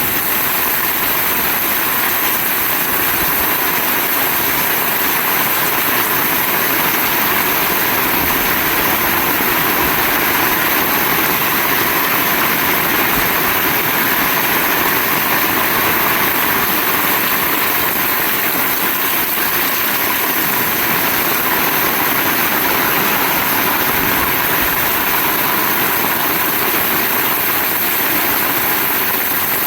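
Heavy rain falling steadily, a dense even wash of noise with no let-up.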